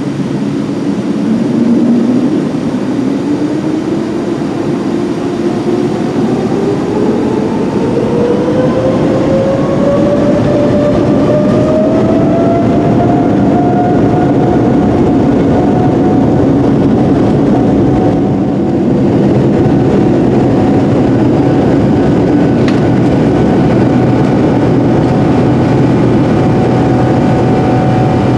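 Boeing 787-10's jet engines heard from inside the cabin spooling up to takeoff thrust. A whine rises steadily in pitch over the first dozen seconds, then holds steady over a loud, constant rumble of the takeoff roll.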